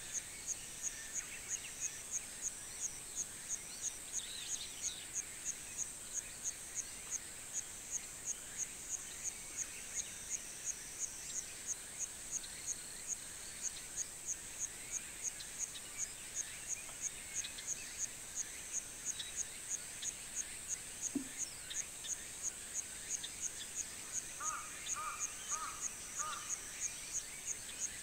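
Countryside ambience of insects: a steady high-pitched drone with a short chirp pulsing about twice a second. Scattered faint bird chirps come through, and near the end a bird calls four times in quick succession.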